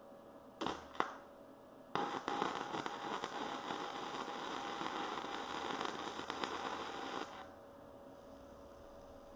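Electric arc welding on steel billet stock: two brief arc strikes about half a second apart, then a continuous crackling weld run for about five seconds that cuts off sharply.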